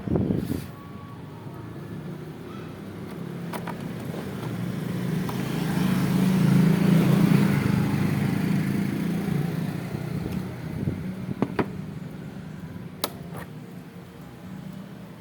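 Yamaha Mio 5TL scooter's small single-cylinder four-stroke engine idling at a steady pitch, growing louder toward the middle and then fading. A few light clicks are heard.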